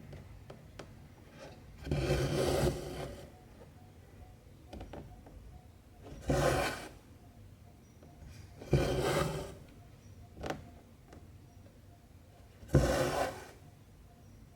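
Cotton embroidery thread being pulled through cross-stitch fabric with a rasping rub, four long pulls about every two to four seconds, with faint ticks of the needle between them.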